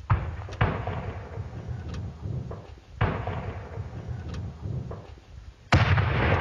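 Heavy weapons fire: a string of sharp reports, each trailing off in a long rolling rumble, with the loudest one near the end.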